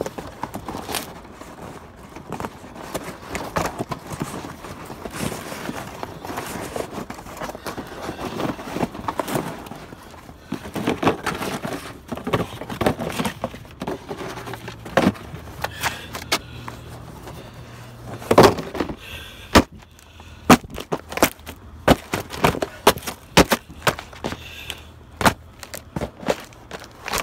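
Cardboard shoe boxes being handled and stomped flat under a boat shoe on pavement. Crumpling and rustling give way, in the second half, to a quick series of sharp crunches and cracks as the boxes are crushed and torn.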